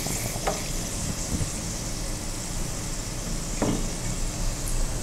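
Hot oil sizzling gently in a kadhai while fried nuts are lifted out with a wire skimmer, with a couple of light knocks of the skimmer against the pan over a steady low rumble.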